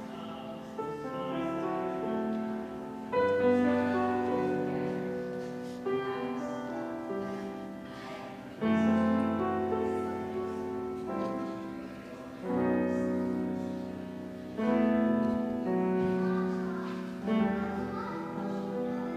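Piano playing slow, sustained chords. Each chord is struck and left to ring and fade, with a new one every two to three seconds.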